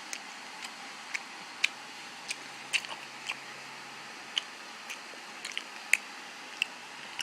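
Someone chewing a mouthful of crunchy snack chips and crackers: short sharp crunches come irregularly, about two a second, over a steady faint hiss.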